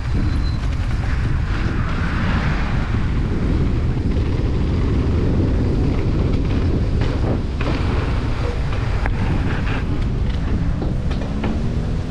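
Wind rushing over a helmet-mounted action camera's microphone as a hardtail mountain bike rolls fast down a dirt trail, with the tyres rumbling and a few sharp knocks and rattles from bumps in the second half.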